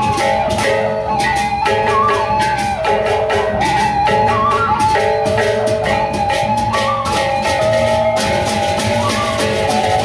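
Sasak gendang beleq ensemble playing: a steady beat of hand cymbals, drums and gongs, with a sustained melodic line above it.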